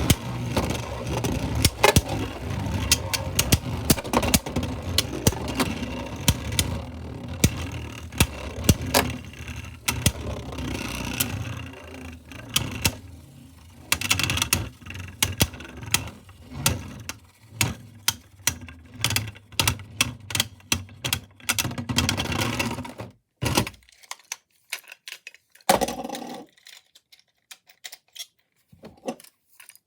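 3D-printed Beyblade spinning tops spinning and clashing in a plastic stadium: rapid sharp clicks and knocks that grow sparser as the tops slow, dying out a little over two-thirds of the way in, with a couple of lone knocks afterwards.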